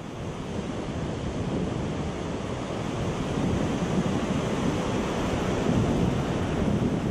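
A steady rushing noise, like surf or wind, swelling in loudness over the first few seconds and then holding steady.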